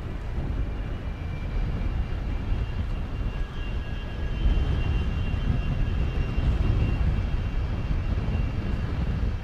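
Boeing 737-200's Pratt & Whitney JT8D jet engines running at taxi power as the airliner lines up on the runway: a steady low rumble with a faint high whine over it, a little louder about halfway through.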